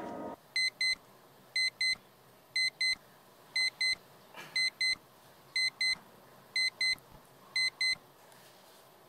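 Electronic wake-up alarm beeping: high double beeps, one pair each second, eight pairs in all, stopping about a second before the end.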